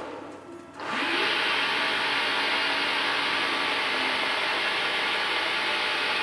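Grizzly G0602 bench lathe, driven by a VFD, ramping up about a second in after a short lull, now turning the other way. It then runs steadily at around 760 rpm with an even whir from its spindle and drive belt.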